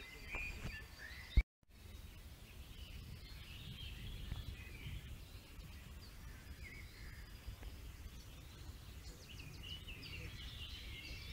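Small songbirds chirping and trilling over a steady low rumble. About a second and a half in there is a single sharp click, then a moment of dead silence.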